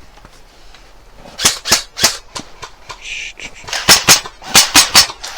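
Airsoft fire: a string of about a dozen sharp cracks, starting about a second and a half in and coming faster in the second half.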